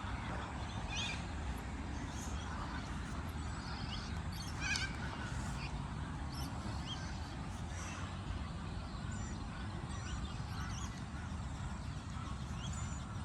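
Scattered short bird calls, several sliding down in pitch, over a steady low background rumble.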